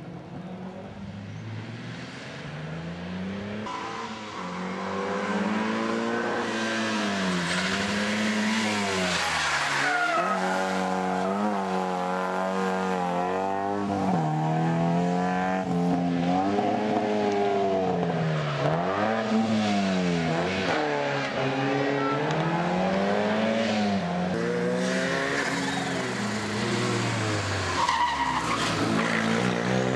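Rally car engine revving hard and dropping back over and over as it accelerates, shifts gear and brakes on a twisty tarmac stage. It grows louder as the red car approaches and passes close near the end.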